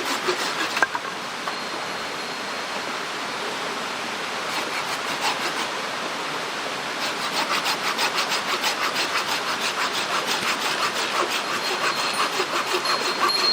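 Hand saw cutting wood in quick, even back-and-forth strokes, about four to five a second, over a steady rushing noise. The sawing stops after about a second and starts again a few seconds later.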